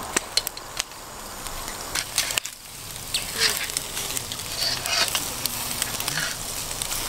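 Skewered meat sizzling over hot charcoal, with irregular sharp crackles and pops from the coals and dripping fat.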